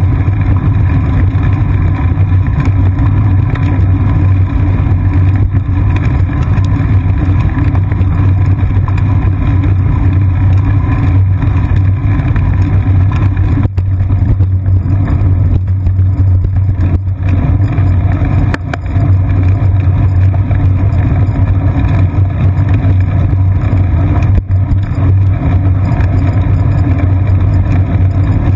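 Steady low rumble of wind and road vibration picked up by a seat-post-mounted GoPro Hero 2 on a moving bicycle.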